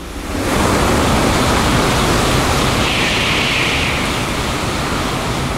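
Shinkansen bullet train passing through the station at full speed without stopping: a loud rush of air and wheel noise that sets in sharply under a second in, stays loud with a bright hiss a little after the middle, and eases off near the end. The track is wet in heavy rain.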